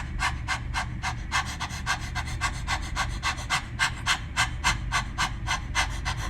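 A person panting through the mouth in quick, even, forceful out-breaths, about four to five a second. It is a singer's breathing exercise done like a puppy's panting, a long string of short exhales.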